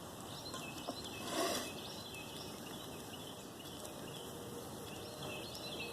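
Quiet outdoor ambience with faint birds chirping throughout. A brief rustle comes about a second and a half in.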